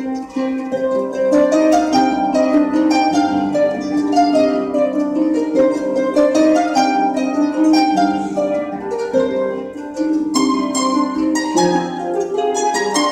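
Harp ensemble playing: many harps plucking overlapping notes and arpeggios in a continuous flowing texture.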